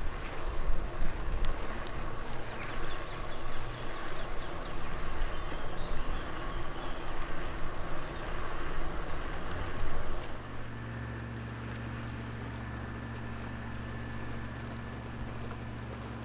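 Bicycle riding over asphalt: uneven tyre-rolling and wind noise with a few sharp rattles and clicks from the bike. About ten seconds in it cuts off abruptly to a steady, quieter low hum.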